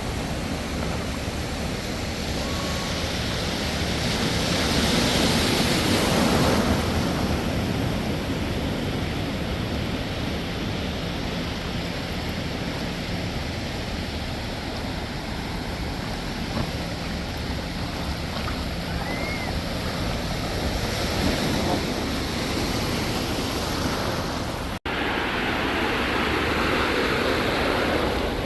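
Atlantic Ocean surf washing in steadily, with wind buffeting the microphone; the waves swell loudest about five seconds in, and the sound breaks off for an instant near the end.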